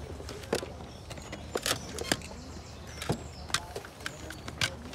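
Irregular clicks and taps of small cardboard and plastic boxes being handled, several in a second, with a few faint high chirps.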